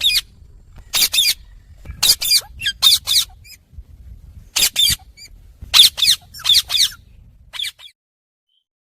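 Indian ringneck parakeet giving short, high-pitched chirps in quick clusters of two to four, a cluster about every second; they stop about a second before the end.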